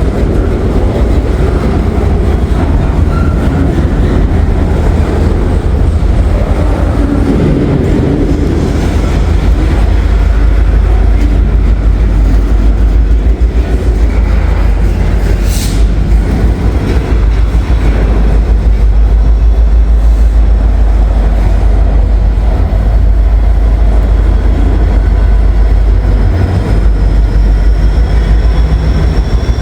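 Freight train moving slowly past, a heavy continuous low rumble of locomotives and rail cars, with one brief sharp high screech or clank about halfway through and a faint high wheel squeal near the end.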